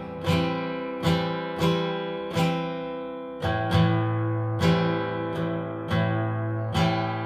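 Acoustic guitar strummed chords, one strum about every second left ringing, with a chord change about halfway through: the instrumental intro of a song.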